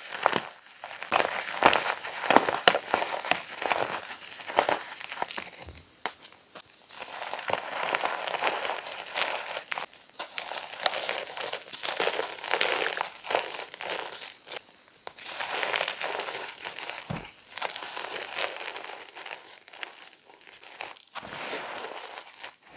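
Chalk being crushed, a dense crisp crunching and crackling made of many small sharp cracks, in several bouts with short pauses between them.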